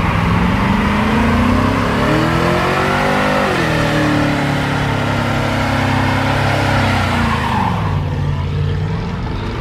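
A car engine revving hard: its pitch climbs for about three and a half seconds, drops sharply, holds for a few seconds, then falls again near the end.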